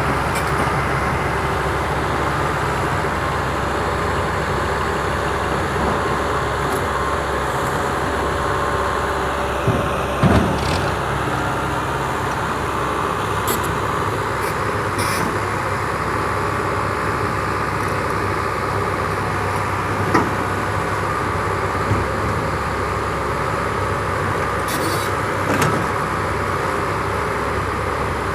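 Komatsu 70 excavator's diesel engine running steadily at work, with a few short knocks, the loudest about ten seconds in.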